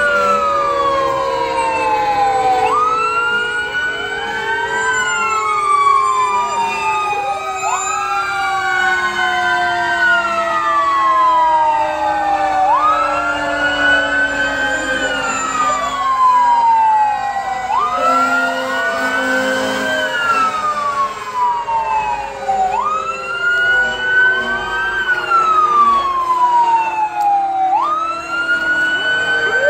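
Fire truck sirens wailing, several at once: one jumps up in pitch and slides slowly back down, about every five seconds, while a lower siren tone falls steadily throughout.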